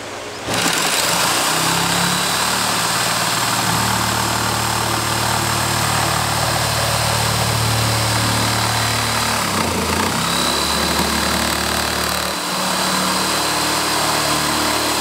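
Corded electric jigsaw with a fine blade running and cutting a slot through a kayak's plastic deck. It starts about half a second in and runs steadily, its pitch sagging briefly twice in the second half as the blade loads up in the cut.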